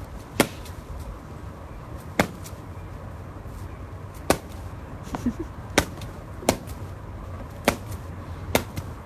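About eight sharp taps or knocks at irregular intervals, over a low steady hum.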